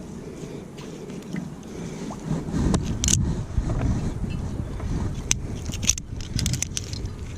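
Rumbling handling noise with a scatter of sharp metallic clicks and clinks, from a magnet-fishing magnet and the small steel finds stuck to it being handled and pulled off. Several clicks come close together near the end.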